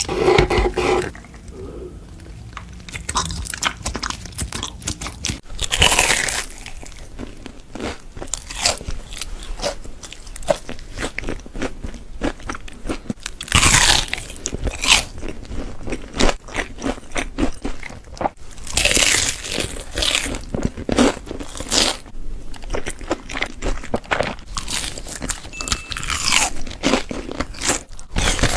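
Close-miked eating: crunchy bites and steady chewing, with louder crunching bites every few seconds.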